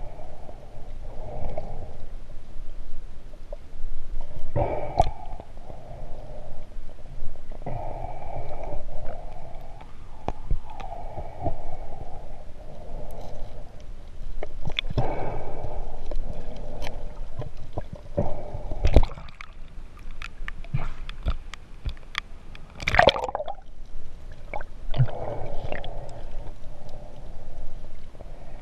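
Muffled underwater gurgling and bubbling from a snorkeler's breathing, swelling every few seconds, with a few sharp knocks.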